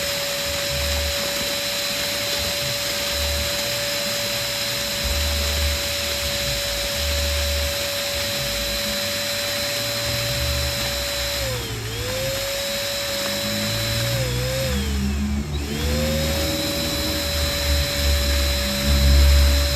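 Electric balloon pump running with a steady, high motor whine. Its pitch sags briefly twice, as the motor slows for a moment, then recovers. Irregular low thuds come in under it toward the end.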